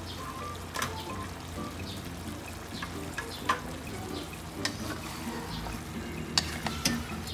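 Chicken sizzling in a pot under a layer of chopped chayote, with scattered sharp clicks and knocks, and a wooden spatula scraping through the pot near the end as it is stirred.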